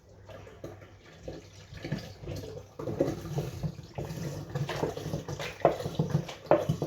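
Orange juice glugging as it is poured into a container. It starts faintly about a second and a half in and becomes a fuller, irregular run of glugs from about three seconds in.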